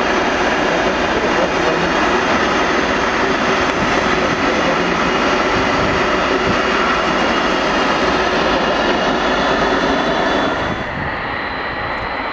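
Aircraft de-icing truck spraying de-icing fluid onto an airliner's tail: a steady, loud hiss of spray over machinery drone, with a faint high whine running through it. About ten and a half seconds in it drops in level and turns duller.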